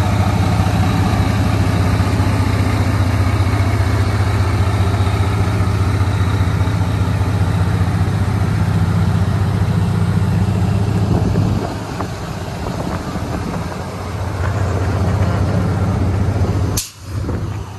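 Semi truck's diesel engine idling steadily, a low even hum that becomes quieter about twelve seconds in. A brief sharp noise near the end.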